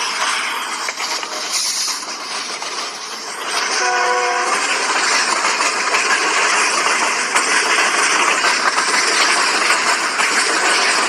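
Train running past with loud, steady rolling noise and wheel clatter, and a short horn note about four seconds in.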